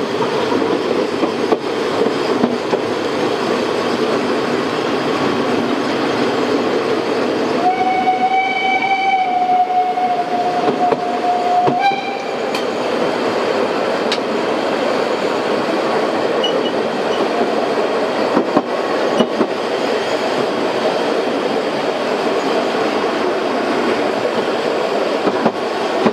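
750 mm narrow-gauge steam train running, heard from a carriage: a steady rumble and clatter of wheels and coach. About eight seconds in the locomotive's whistle gives one long blast of about four seconds, ending with a brief, slightly higher note.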